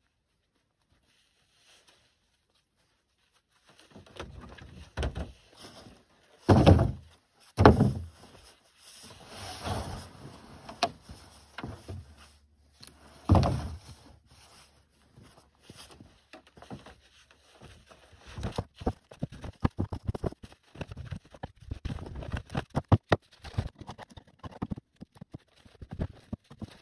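Loud thumps and knocks of gear being handled at a pickup truck's tailgate and set into a plastic sled, three big ones with rustling between. A long run of quick scuffs and crunches follows.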